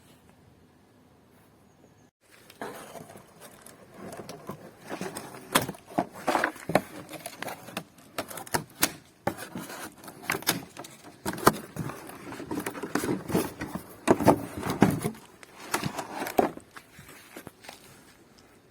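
Irregular knocks, clicks and rustling of hands and tools at work fitting a car radiator, starting about two seconds in.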